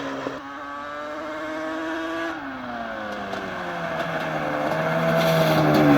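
Yamaha Banshee's 350 cc two-stroke twin engine on aftermarket exhaust, its revs dropping about two seconds in, then building again and getting louder toward the end.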